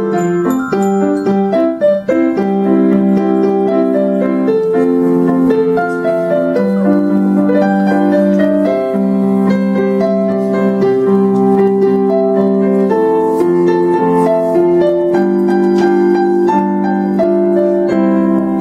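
A Christmas tune played by a class on many small glockenspiels struck with beaters, together with a piano-like keyboard sound holding the melody and chords.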